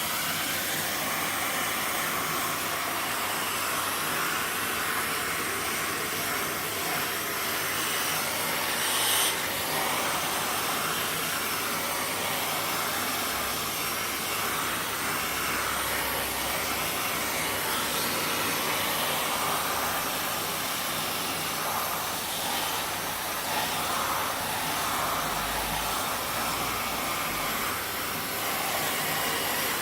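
Vacuum cleaner running steadily with a hiss of rushing air, its note shifting a little as the nozzle is drawn over a cat's fur, with a brief louder rush about nine seconds in.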